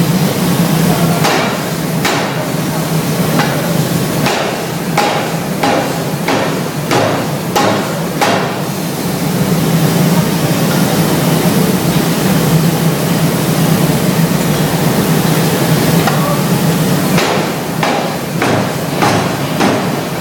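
Steam forging hammer striking a red-hot steel billet, a run of heavy blows about every three-quarters of a second over a steady machine hum. The blows stop for several seconds midway, leaving the hum, and start again near the end.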